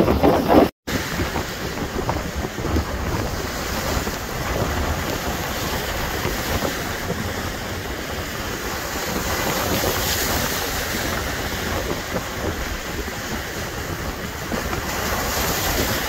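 Wind-driven lake waves breaking and washing against shoreline rocks, a steady rushing surf with slow swells, mixed with strong wind gusting on the microphone. The sound drops out for an instant just under a second in, and the surf after it is a little quieter.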